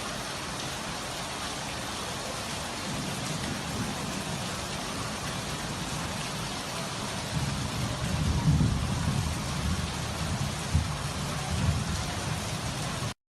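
Heavy rain falling steadily. Low rumbling with a few sharper peaks joins it from about halfway through, and the sound cuts off suddenly just before the end.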